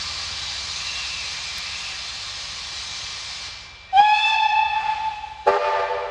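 Steam locomotive hissing as steam escapes, fading out after about three and a half seconds. Then a steam whistle sounds on one clear note about four seconds in, and a second, lower whistle with several notes sounding together as a chord joins about a second and a half later.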